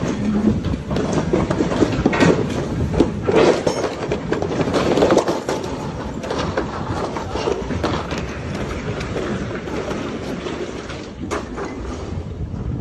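Floodwater from a swollen river rushing loudly, with wind buffeting the microphone; louder in the first half.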